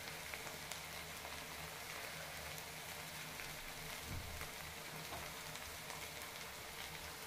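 Chopped onions and green chillies sizzling steadily in hot oil in a kadai, just after chilli powder has been added, with a few faint spatula clicks.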